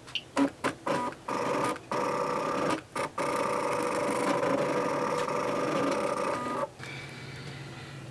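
Cricut Expression die-cutting machine cutting a shape: a few clicks in the first second, then its motors whir steadily as the blade carriage and mat move, with a couple of brief pauses, stopping about six and a half seconds in.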